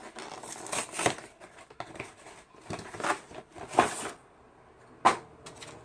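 Cardboard collection box being opened by hand: rustling and scraping of cardboard and packaging in a string of short bursts, with a sharp click about five seconds in.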